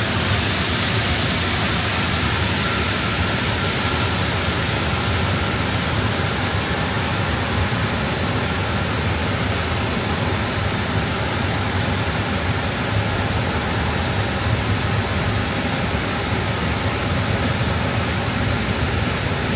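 Airbus A320 engine dry-cranking on its air starter, with no fuel or ignition, heard from inside the cockpit: a steady rush of air noise with a thin high whine that rises in pitch over the first several seconds as the engine spools up.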